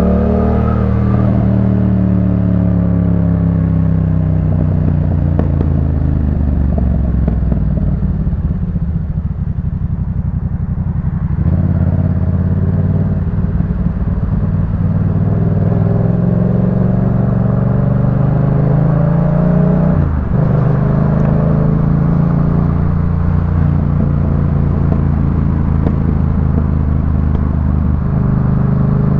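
Yamaha MT-07's 689 cc parallel-twin engine through a Jeskap K4 full aftermarket exhaust, ridden on the road. It eases off at first and runs low and a little quieter for a few seconds. Then it pulls up through the revs, with a sudden drop in pitch about twenty seconds in, like an upshift, and climbs again.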